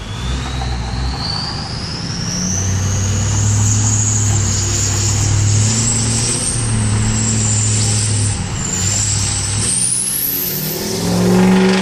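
2003 Ford F-250 Power Stroke diesel's turbocharger whistling over the running engine. A high whistle climbs steadily over the first few seconds, holds, dips briefly, then climbs higher still and fades near the end.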